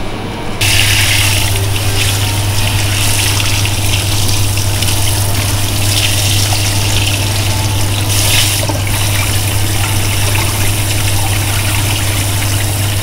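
Water from a handheld spray hose at a backwash sink running steadily over a person's head and splashing into the basin, starting about half a second in, with a steady low hum underneath.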